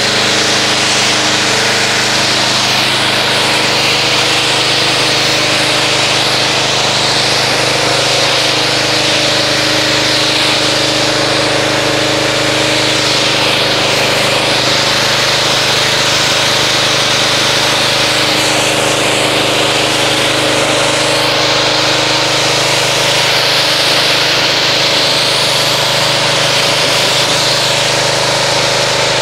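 Pressure washer running steadily, its motor humming under the hiss of the water jet as it rinses soap foam off a car's paint.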